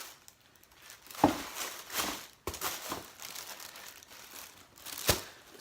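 Packaging and clothes being handled, crinkling and rustling unevenly, with two short knocks: one about a second in and one near the end.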